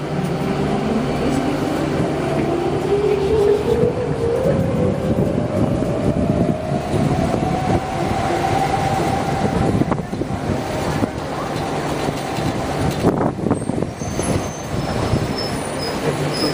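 A large vehicle pulling away amid street traffic noise, its drive whine rising steadily in pitch over about eight seconds, then levelling off. A few short high squeals come near the end.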